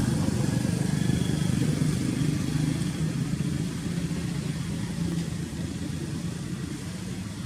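An engine running steadily with a low rumble, growing slightly quieter toward the end.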